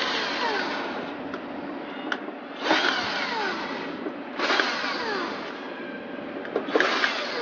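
Cordless drill-driver running screws into the metal plate on the underside of a crepe maker in three short runs, plus the end of one more at the start. The whine in each run falls in pitch.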